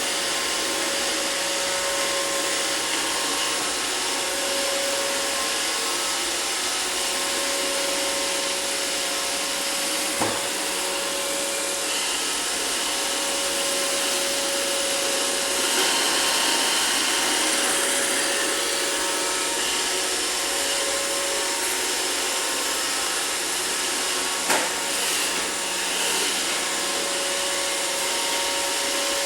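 iRobot Roomba robot vacuum running steadily, its motor and brushes making an even whir with a humming tone that comes and goes. There is a sharp knock about ten seconds in and another later on.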